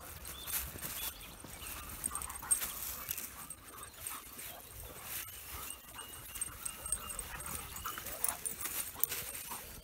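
A dog whimpering in thin, short whines, one held longer near the middle, over footsteps and rustling on a grassy path.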